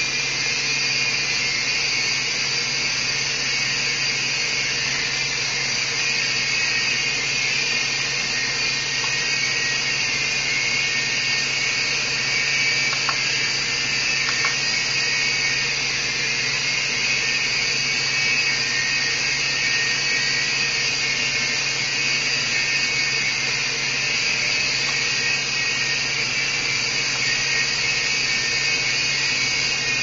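Miniature coaxial RC toy helicopter's small electric motors and twin rotors whirring in flight, a steady high-pitched whine.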